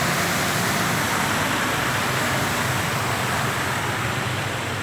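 Heavy rain on a flooded road as cars drive through the standing water: a steady dense hiss of rain and tyre spray with a low engine hum beneath, easing slightly near the end.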